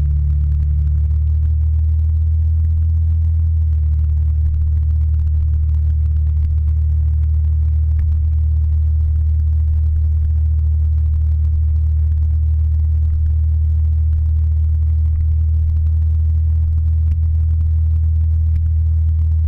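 Motor scooter riding at a steady speed: a low, even engine drone mixed with wind rumble on the camera's microphone, the engine note easing slightly in the first second.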